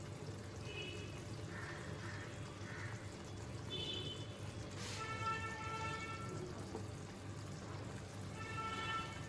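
Fish curry gravy simmering in a frying pan, faintly bubbling, under soft background music with a few held notes.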